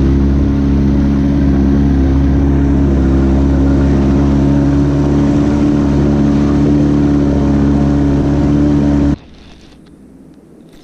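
Small boat's outboard motor running steadily at idle speed, pushing the boat slowly along. It cuts off suddenly about nine seconds in.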